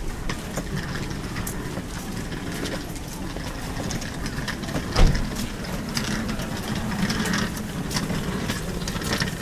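Hands working dough on a floured wooden board: scattered soft knocks and taps, with one louder thump about five seconds in, over a steady low background hum.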